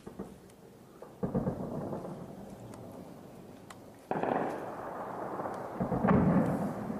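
Heavy blasts of urban fighting in the city: a sharp one about a second in and a louder one about four seconds in, with another near the end, each trailing off in a long rolling rumble, and faint scattered shots between them.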